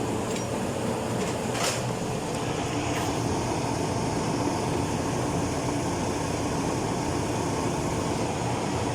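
Whirlpool clothes dryer's drive motor, with its cooling fan, running steadily on a test after its broken winding wire was spliced: a steady hum and whir showing the repaired motor works. A brief click about two seconds in.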